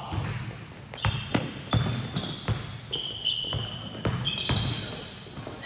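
Basketball being dribbled on a gym court, a run of irregular bounces about every half second, with short, high-pitched sneaker squeaks as players cut and shuffle.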